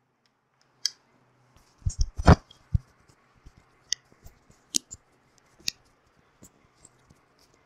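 Irregular clicks, taps and bumps of close handling noise, with a cluster of heavier bumps about two seconds in and scattered sharp ticks after.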